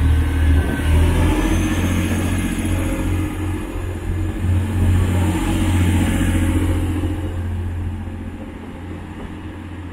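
TransPennine Express Class 185 diesel multiple unit pulling away under power as its coaches pass close by, with a steady low engine note and a faint high whine rising over the first few seconds. The sound fades over the last couple of seconds as the train draws away.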